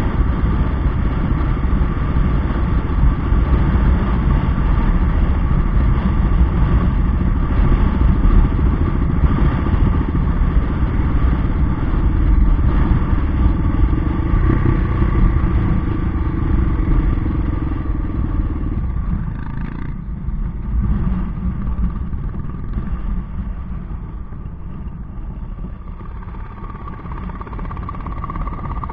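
Yamaha XT 600's single-cylinder four-stroke engine running as the motorcycle rides along a gravel dirt track. About two-thirds of the way through, the sound drops and grows quieter as the bike slows.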